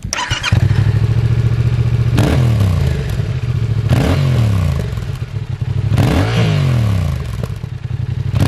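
Fantic Caballero 700's Yamaha CP2 parallel-twin engine firing up through its stacked twin silencers and settling into idle, then blipped hard four times, about two seconds apart, each rev rising sharply and dropping back to idle.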